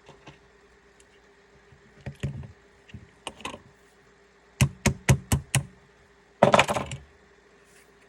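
Hammer tapping a punch to drive the magazine release roll pin out of an airsoft rifle's plastic lower receiver: a few light taps, then a quick run of about six sharp strikes and a last burst of rapid knocks near the end.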